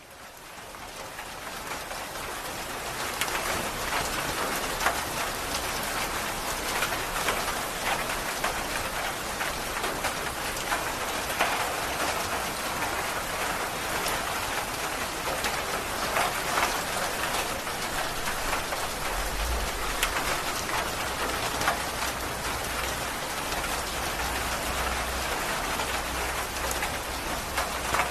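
Heavy rain falling steadily on foliage and a stone path, with many close individual drop hits. It fades in over the first couple of seconds, and a low rumble runs underneath in the second half.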